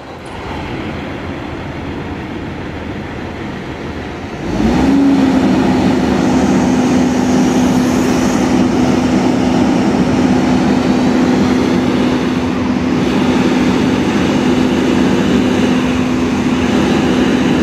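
Mobile crane's diesel engine running, then revving up sharply about four and a half seconds in and holding a steady high drone while it hoists a concrete bucket.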